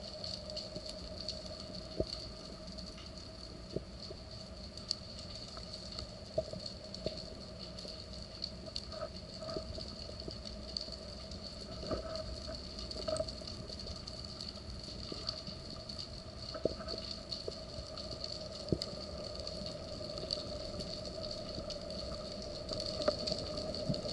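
Underwater ambience heard through a waterproof camera housing: a steady faint hum with scattered, irregular sharp clicks and crackles.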